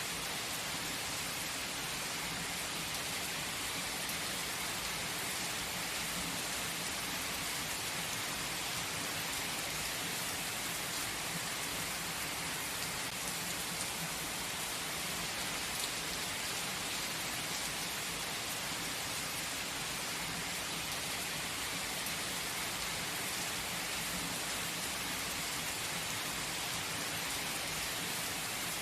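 Steady, gentle rain falling, an even patter of many small drops with no breaks.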